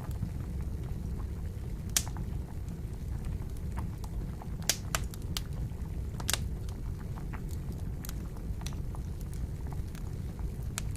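Wood campfire crackling, with scattered sharp pops (the loudest about two seconds in and twice more near the middle), over a steady low bubbling of water at a boil.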